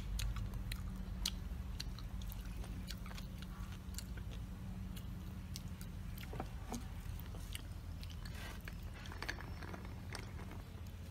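Close-miked chewing: irregular crisp clicks from the mouth, over a steady low hum.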